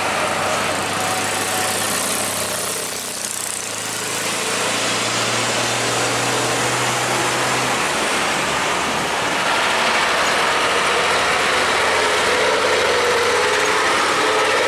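Heavy diesel trucks passing on a busy road: engines running with tyre and road noise. A steady low engine drone stops about halfway through, leaving denser traffic noise.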